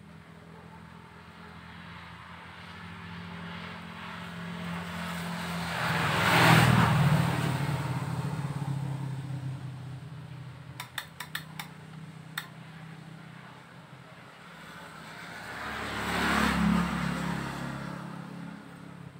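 Two motor vehicles pass by, each swelling up and then fading away; the first is the louder. Between them comes a quick run of light clicks.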